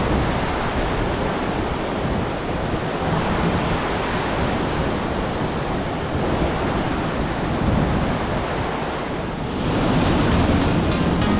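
Steady rushing of whitewater river rapids, with some wind on the microphone. Music comes in near the end.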